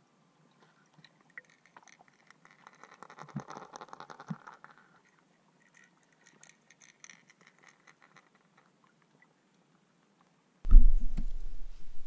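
Faint scattered clicks and crackles, muffled through an action camera's housing under water. They are busiest a few seconds in. Near the end a much louder low rumbling noise starts abruptly.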